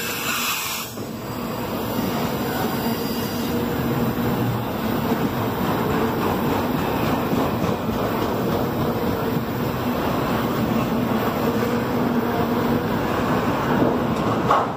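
CSX freight train's enclosed autorack cars rolling past: a steady rumble and rattle of steel wheels on the rails, with a faint steady hum underneath.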